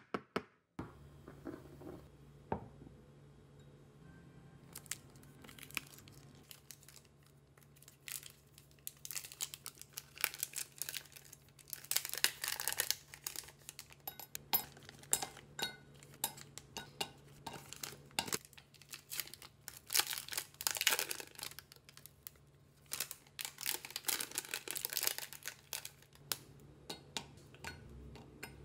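A chocolate bar's wrapper crinkling and tearing in several bouts as the bar is unwrapped, with sharp snaps as pieces are broken off and dropped clinking into a glass measuring jug.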